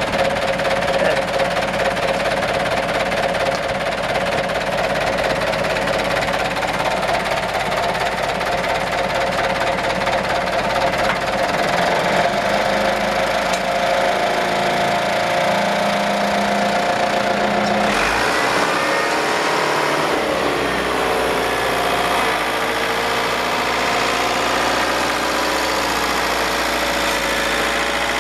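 Engine of a small crane truck (Tadano Super Z250 loader crane) running at idle with a steady mechanical hum. About 18 seconds in the sound changes suddenly, its pitch wavering and shifting for a few seconds before it settles into a steady hum again.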